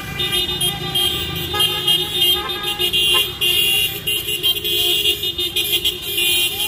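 Car horns in a vehicle caravan honking, several overlapping and held at steady pitches, over the rumble of traffic.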